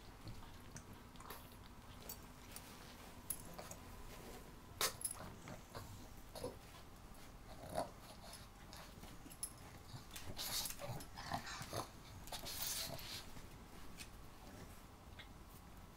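Two dogs, a pug and an older dog, playing: faint snorts and short growls, with rustling from their bodies moving on the dog bed, busiest about two-thirds of the way through.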